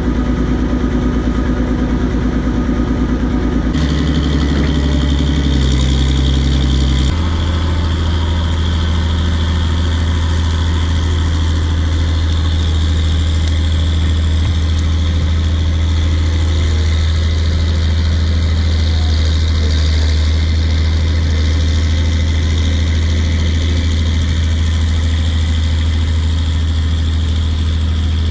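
Bulldozer's diesel engine running steadily under load while the machine pushes out stumps. Its note shifts about four seconds in and again about seven seconds in, then holds steady.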